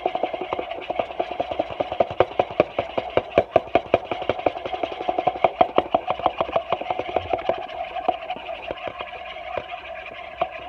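Spoon stirring hand-feeding formula in a small cup, clicking rapidly against the sides, several clicks a second, over a steady hum.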